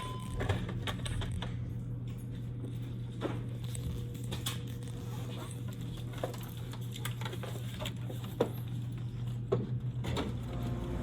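Scattered clicks and light knocks of hands fitting a new coin mechanism into a snack vending machine, over a steady low hum.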